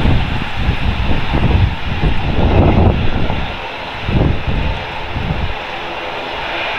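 Airbus A380 jet noise during pushback: a steady jet hiss and whine, with uneven low rumbling that dies away about five and a half seconds in, leaving a steadier hum.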